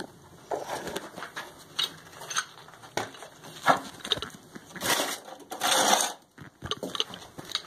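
Hand tools being handled: irregular clatter, knocks and scraping, with louder rustling scrapes about five and six seconds in.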